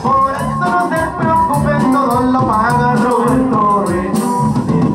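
Live norteño band playing an instrumental passage of a song: an accordion-led melody over stepping bass notes and a steady drum beat.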